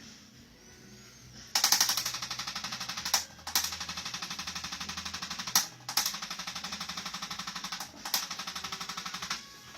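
Handheld chiropractic adjusting instrument (activator) firing rapid repeated clicking taps on the upper back at T3, about ten a second, in four runs with brief pauses between.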